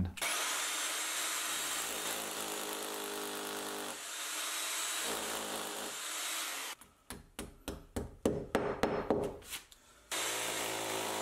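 Corded hammer drill boring through a timber batten into the mortar joint of a brick wall for a long fixing, the motor running steadily. Partway through it runs in several short stop-start bursts, then runs steadily again near the end.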